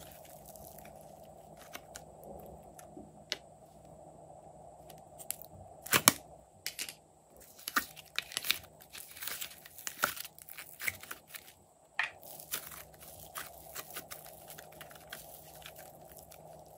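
Soft slime stretched and pulled apart by hand, giving irregular sticky crackles, small pops and tearing sounds, with a few louder sharp clicks about a third of the way in.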